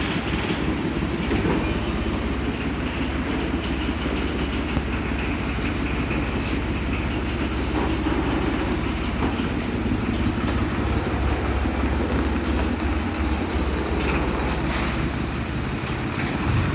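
Heavy machinery running steadily with a low rumble and a rattling clatter.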